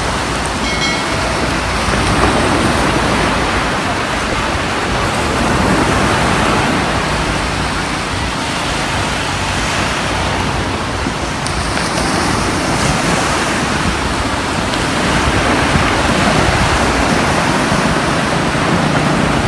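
Small waves breaking and washing up a sandy beach: a steady rush of surf that swells and eases every few seconds.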